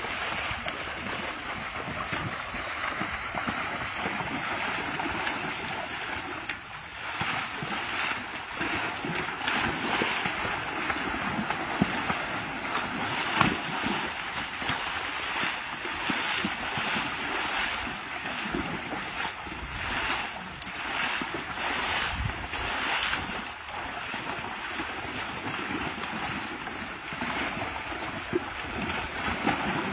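Water splashing and rushing, with wind on the microphone. A run of louder, irregular splashes falls in the middle stretch.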